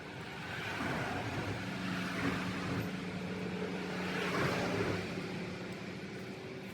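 A passing motor vehicle: a steady engine hum with a rushing noise that swells, peaks about four seconds in, then fades away.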